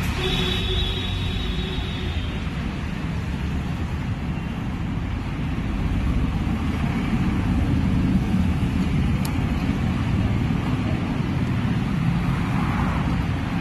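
Road traffic noise: a steady hum of passing vehicles that grows louder about halfway through.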